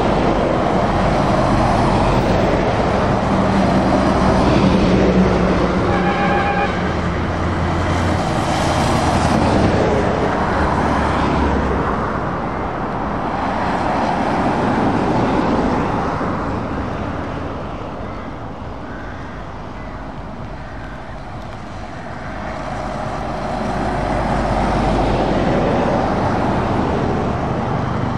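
Scania lorries driving past one after another on a wet road: diesel engines running and tyres hissing on the wet tarmac. The sound swells and fades as each passes and dips somewhat before rising again near the end as the next truck approaches. A short horn note sounds about six seconds in.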